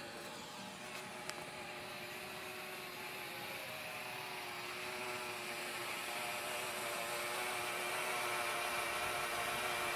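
MJX Bugs 3 quadcopter's brushless motors and propellers whirring steadily as it hovers in GPS position hold: a steady hum with several clear pitches that grows gradually louder. A single click about a second in.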